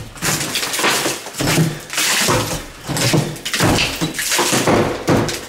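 Claw hammer striking the plaster wall around a steel wall safe, a series of sharp blows about one every second or less, breaking out plaster.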